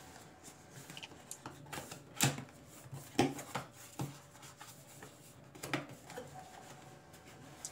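Cardboard box being opened by hand: fingers scraping and prying at the lid's tuck flap, soft rubbing of cardboard with a handful of short sharp clicks.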